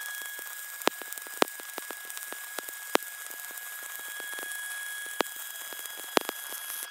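Stick welding (SMAW) arc crackling and sizzling steadily as a weld pass is run on a flat test plate, with a few sharp pops scattered through it and a steady thin whine underneath.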